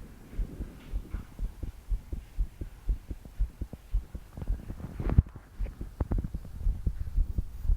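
A young woman's heartbeat, fast and pounding: regular low thumps at about two a second, the sign of palpitations. A louder knock comes about five seconds in.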